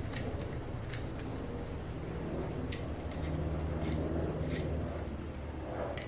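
Scattered sharp clicks of small metal parts and hand tools being handled, irregularly spaced, over a steady low hum.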